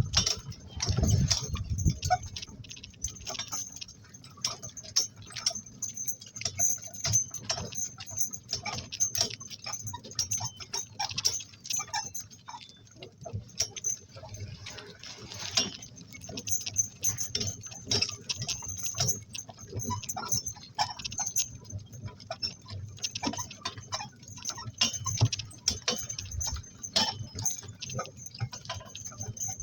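Irregular metallic jingling and clicking of donkey harness and cart hardware, many small sharp clicks with no steady rhythm.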